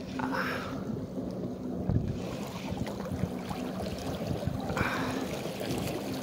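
Wind buffeting the microphone over water noise, with a faint steady low hum underneath.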